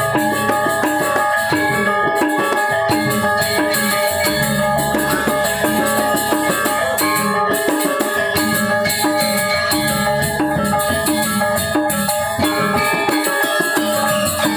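Balinese gamelan gong ensemble playing an instrumental piece (tabuh): bronze metallophones and gongs struck in fast, ringing interlocking patterns over drums, with a constant high, jingling cymbal shimmer.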